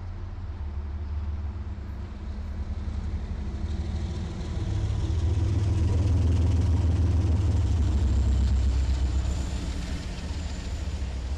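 Two diesel freight locomotives passing close by, their engines running with a deep, steady drone that swells to its loudest a little under halfway through as the units go past, then eases off.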